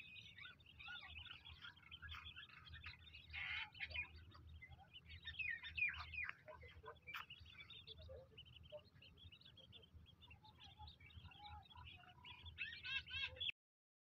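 A flock of chicks peeping, many thin, high chirps overlapping, with a louder run of chirps near the end before the sound cuts off suddenly.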